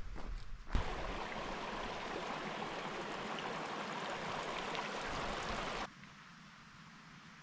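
A few footsteps on a dirt trail, then a shallow mountain creek running over rocks for about five seconds, which cuts off suddenly to a quiet outdoor background.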